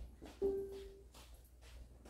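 A single short, steady mid-pitched tone with a sharp start, lasting about half a second and fading out, over faint room noise.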